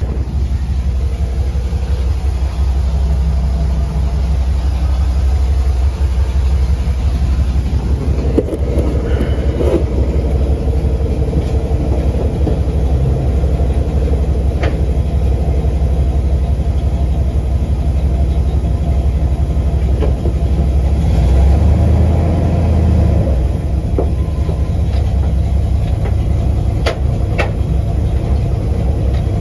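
Chevrolet C10 pickup's engine idling steadily just after being brought back to running, swelling briefly a little over twenty seconds in.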